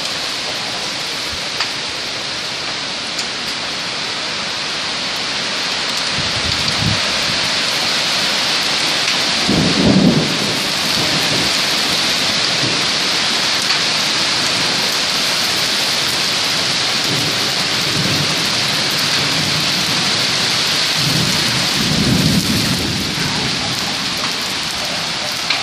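Heavy thunderstorm rain pouring steadily onto a gravel driveway and trees, an even hiss, with low rumbles of thunder about ten seconds in and again a few seconds before the end.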